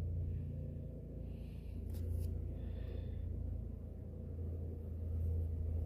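Steady low hum, with faint soft breaths and two light clicks about two seconds in.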